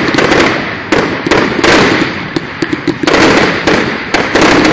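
Aerial fireworks bursting in rapid succession, about two bangs a second, each followed by crackle and a noisy tail.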